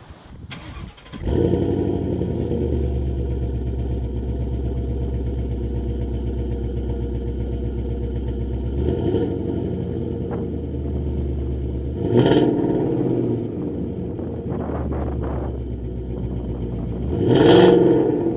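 2016 Ford Mustang GT's 5.0 L V8 through a Flowmaster American Thunder cat-back exhaust, starting up about a second in and settling into a steady idle. The engine is revved briefly three times, the last rev the biggest, near the end.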